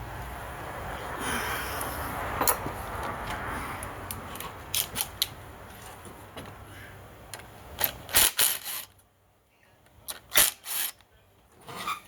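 Clicks, knocks and clatter of hand tools and metal parts during the disassembly of a chainsaw, in irregular groups with a short quiet pause before the last few clicks.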